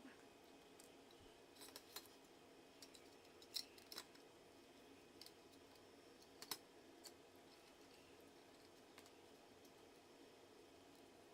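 Scattered small, sharp clicks and snips of parts being handled and fitted together while a small MP3 player is reassembled, the loudest about a third and about halfway through, over a quiet room.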